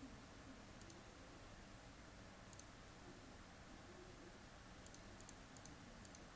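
Faint computer mouse clicks over near-silent room tone: one about a second in, another a little past the middle, then a quick run of several near the end.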